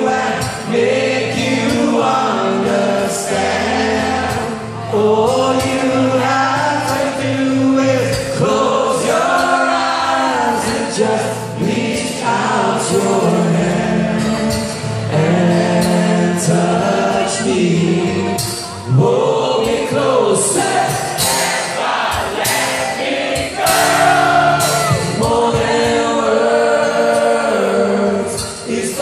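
Live acoustic rock ballad: male vocals over a strummed acoustic guitar, played through a concert PA and heard from the audience.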